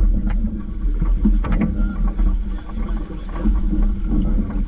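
A small sailing dinghy under way: wind rumbling on the microphone and water washing along the hull, with a few sharp clicks from the boat's gear about a second and a half in.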